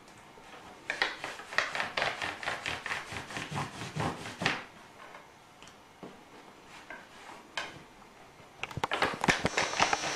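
Hands rolling fusilli dough around a thin iron rod on a wooden pastry board: rapid light taps and rubbing of the rod and hands against the wood. There are two runs, one from about a second in to midway and another near the end, with a quieter stretch between them.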